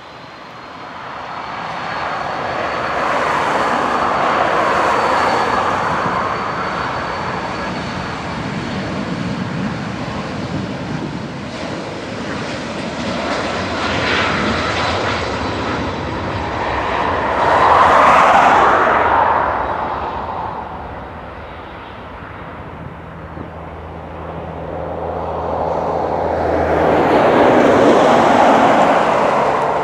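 CityJet Avro RJ85's four turbofan engines running up and pushing the jet down the runway on its takeoff roll. A thin high whine sits over a steady jet rumble for the first several seconds, and the sound swells loudest about two-thirds of the way in and again near the end.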